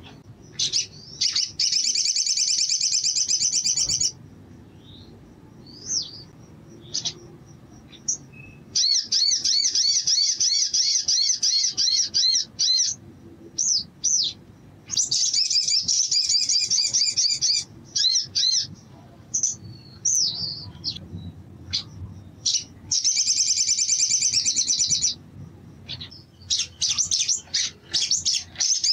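Male olive-backed sunbird singing: about five long, rapid, high trills of two to four seconds each, broken up by short sharp chips.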